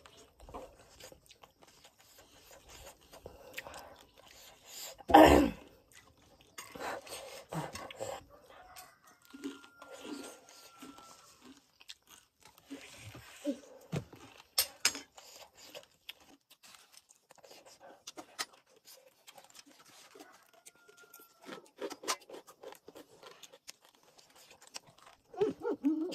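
Someone biting and chewing cooked corn on the cob close to the microphone, in irregular crunches, with one louder crunch about five seconds in.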